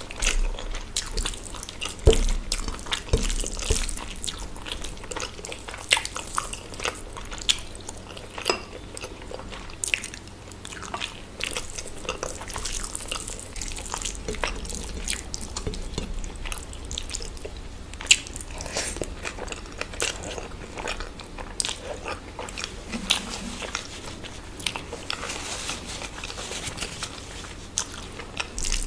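A person eating close to the microphone: chewing and biting through food, with many short, irregular mouth clicks and a few louder knocks.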